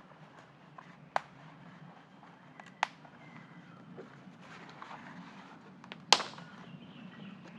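A few sharp, isolated knocks or snaps over a faint steady background: one about a second in, another near three seconds, and the loudest about six seconds in.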